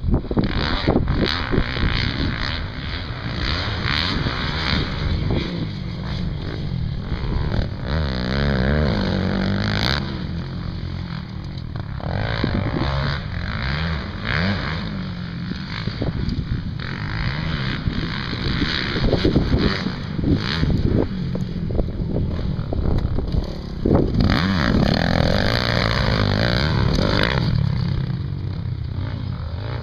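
Dirt bike engines running and revving, the pitch rising and falling with the throttle.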